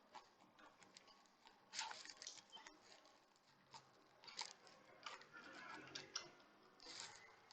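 Faint, scattered clicks, taps and short scrapes of a small hand tool working on an opened smartwatch's internal parts as its connectors are unplugged.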